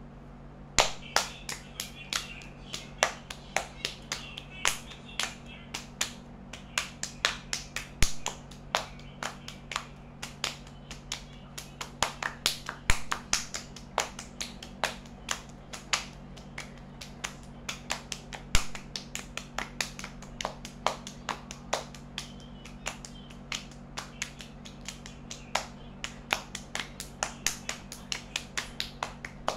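Two people's hands clapping in a fast hand-clapping game: a steady run of sharp claps and palm slaps, several a second, starting about a second in.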